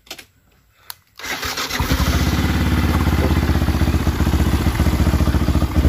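A click, then a Yamaha motorcycle engine starts about a second in and settles into a steady idle with an even, rapid beat.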